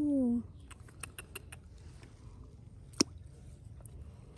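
A short drawn-out "oh" exclamation, then a quick run of about half a dozen light clicks and, about three seconds in, one sharp click.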